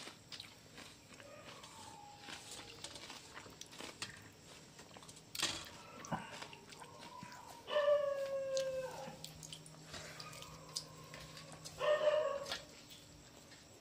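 A dog whining: a long, slowly falling whine about eight seconds in and a shorter one near the end, with a fainter whine early on. A single sharp knock about five and a half seconds in, and light clicks.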